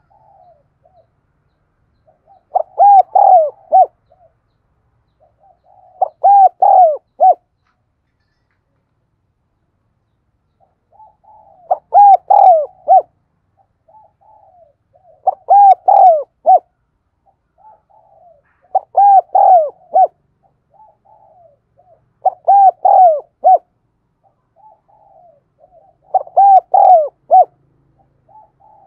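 Spotted dove cooing: about seven phrases, each a few soft low notes leading into a loud run of rolling, falling coos, repeated every few seconds with one longer pause in the middle.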